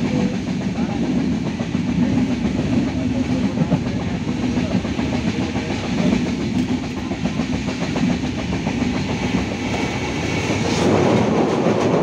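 A passenger train running along the track, heard from inside the carriage: a steady rumble and clatter of wheels on rails that grows louder near the end.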